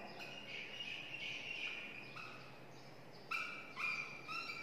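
A marker squeaking on a whiteboard while writing: a run of short, high squeaks, the sharpest few coming quickly one after another near the end.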